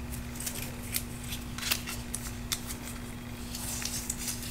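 Light crinkling and scattered small clicks of adhesive tape and its peeled-off backing strip being handled, over a steady faint hum.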